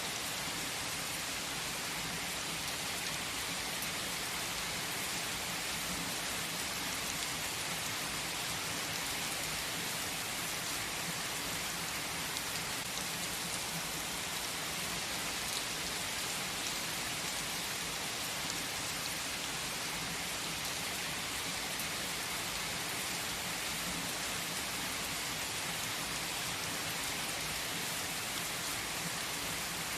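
Steady rainfall, an even hiss of countless drops falling on surfaces, with no single drop or thunderclap standing out.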